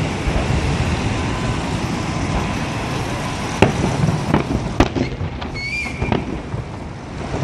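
Fireworks salute: a continuous low rumble of bursting shells, with several sharp, louder bangs in the second half and a brief high whistle about two-thirds of the way through.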